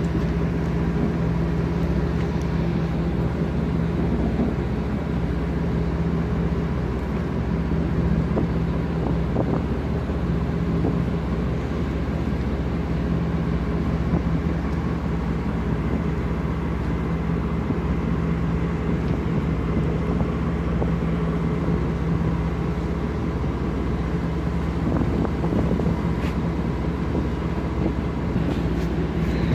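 Tugboat's diesel engine running steadily under load, a deep even drone that holds the same pitch throughout.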